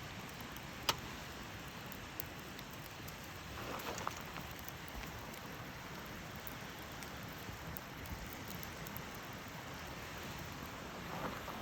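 Wood campfire crackling: a steady hiss of burning wood with scattered sharp pops, the loudest about a second in.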